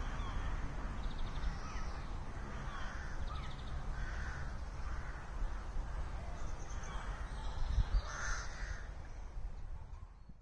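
Crows cawing repeatedly, a harsh call every half second or so in short runs, over a low rumble of wind on the microphone. The sound fades out near the end.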